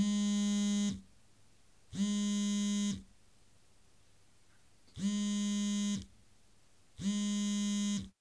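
A harsh electronic buzzer tone at a steady low pitch, sounding four times for about a second each, in two pairs.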